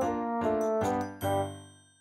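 Background music of light, bright notes; near the end the last note dies away and the music briefly falls almost silent.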